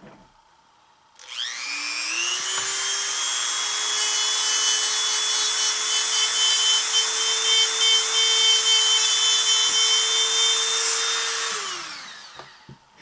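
Dremel rotary tool with a sanding bit starting up, its whine rising quickly to full speed, running steadily for about ten seconds, then winding down in falling pitch and stopping near the end.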